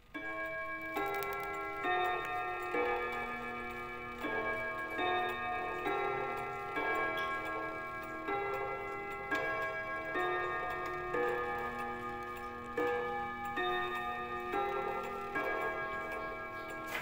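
Mauthe pendulum wall clock playing its hour chime at eight o'clock: a melody of struck, ringing chime notes at about one note a second, each note ringing on into the next.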